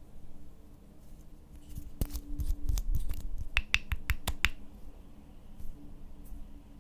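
Slime being kneaded and squeezed by hand, with a quick run of sharp clicking pops from trapped air about two seconds in, lasting a couple of seconds.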